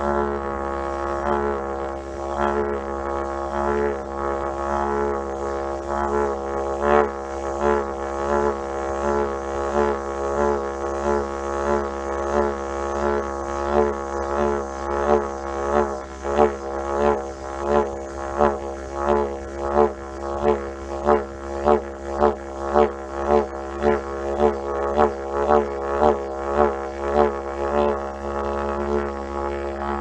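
Wooden yidaki (didgeridoo) playing a continuous low drone. About halfway through, the drone takes on regular rhythmic pulses, about two a second, which carry on until near the end.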